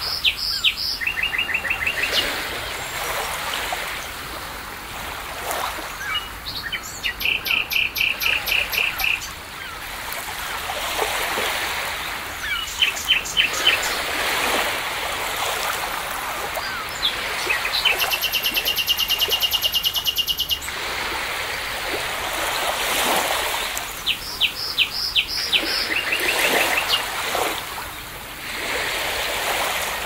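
Birds calling in several bursts of fast, repeated high notes, one long trill near the middle, over the wash of waves that swell and fall back every few seconds.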